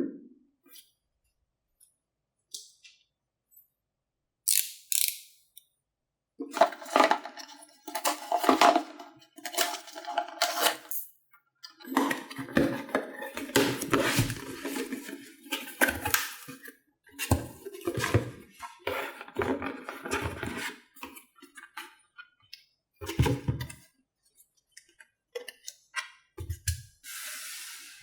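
A ZUS All Day Cup tumbler and its packaging being handled during unboxing: irregular clinks, taps and rustles in bursts with short pauses.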